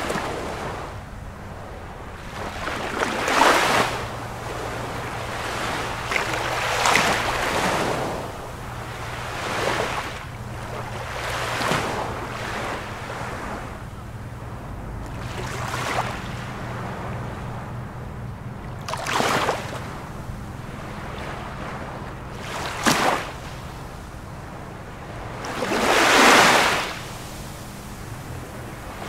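Ocean surf: waves washing in and breaking about every three to four seconds, each a swell of rushing noise that rises and falls away, with a faint low steady hum underneath.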